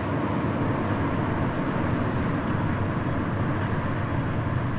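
Steady low rumble of outdoor background noise, like distant traffic, with a faint hum running through it.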